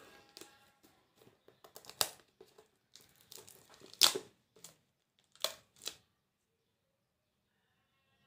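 Plastic shrink-wrap being torn and crinkled off a smartphone box by hand: a run of irregular rips and rustles, the sharpest about two and four seconds in. It stops about six seconds in.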